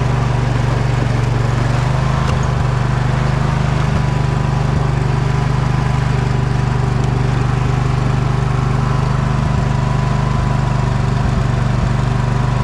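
Poulan riding mower's engine running steadily at an even speed while it pushes a snow plow, with a thin steady whine above the engine note.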